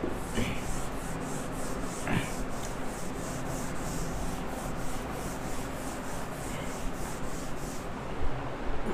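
A handheld duster rubbing marker writing off a whiteboard in quick back-and-forth strokes, about four a second, stopping near the end.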